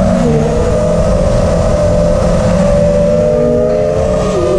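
Vortex 230 racing quadcopter's brushless motors whining as heard from the onboard camera: a steady whine of several close tones over rushing noise, dropping in pitch near the end as the throttle comes off.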